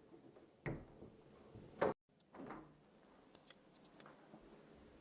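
A few soft knocks and a sharper click, with a brief dropout to silence about two seconds in, then another knock and a few faint ticks, like handling or a door or drawer being moved.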